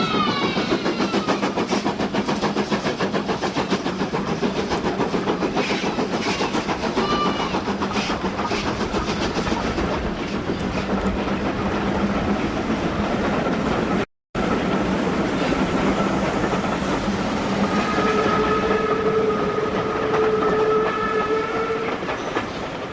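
GER N7 0-6-2T steam tank locomotive working along the line, its exhaust beating in a fast, even rhythm. Near the end its whistle sounds one held chord for a few seconds.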